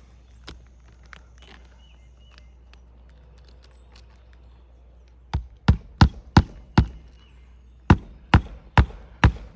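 Hammer driving new roofing nails through a 3-tab asphalt shingle into the roof: a few faint taps and clicks of handling, then from about five seconds in a run of loud, sharp hammer blows, about two to three a second, with a short pause after the first five.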